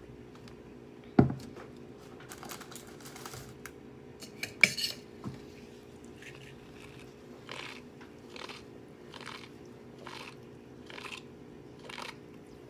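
Close-miked eating: chewing and crunching, rhythmic at about one chew a second in the second half. A sharp knock about a second in and a brief clatter of cutlery or dishes a few seconds later.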